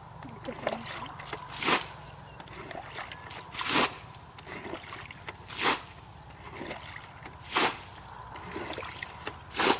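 A plastic bucket scooping muddy water and flinging it out as a shallow pond is bailed, giving five splashes about two seconds apart with softer sloshing between them.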